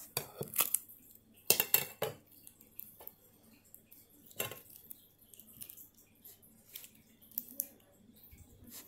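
Metal putty tin and lid clinking and knocking as they are handled: a few sharp clinks in the first two seconds, another about four and a half seconds in, and fainter ticks between.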